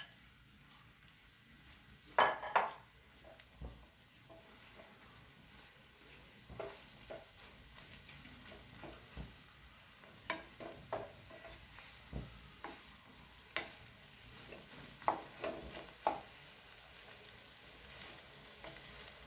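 Chopped yam flower being tipped into a pan of hot masala and stirred with a wooden spatula: a faint steady sizzle under scattered scrapes and knocks against the pan, the loudest clatter about two seconds in.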